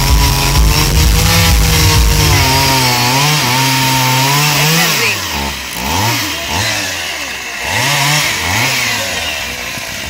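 Two-stroke petrol chainsaw cutting into a wooden log, running steadily at high revs for about five seconds, then revving up and dropping back in short bursts about once a second as the carver works the cut.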